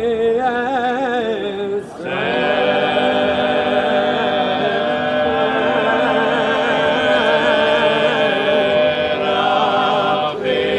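Sardinian folk choir singing a cappella, several voice parts together with vibrato. A short break comes about two seconds in, then a long chord is held until another brief break near the end.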